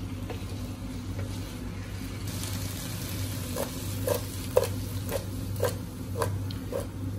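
A wooden spatula stirring cut vegetables in a steel cooking pot: soft scraping and turning, then in the second half a run of light knocks against the pot about twice a second.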